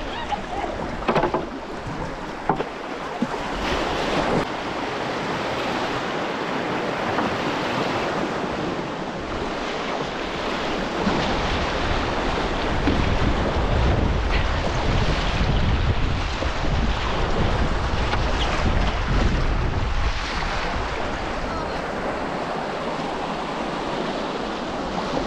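Whitewater river rushing around a kayak, with wind buffeting the microphone, heaviest from about halfway through for several seconds.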